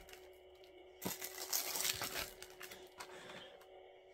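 Cellophane shrink-wrap on a sealed Blu-ray case crinkling and tearing as it is pulled off, busiest in a stretch starting about a second in, then softer rustling.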